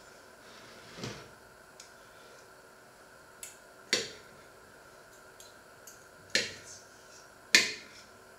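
A knife and fork clinking against a ceramic plate while food is cut: four sharp clinks with a brief ring after each, spaced a second or more apart, and a few fainter taps between them.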